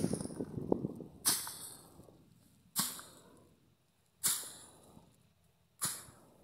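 Hand-threshing: sharp whip-like cracks of a stick beating a heap of dried crop plants on a tarp, four strikes about a second and a half apart, each followed by a brief rustle of dry stalks.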